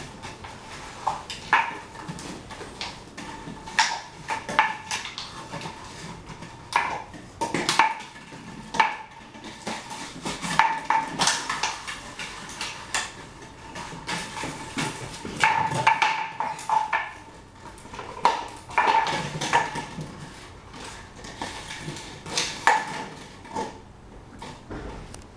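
Plastic water bottle clattering and crinkling on a hardwood floor as a chiweenie puppy bites, pushes and carries it. Irregular knocks and crackles come in clusters, some with a brief ring.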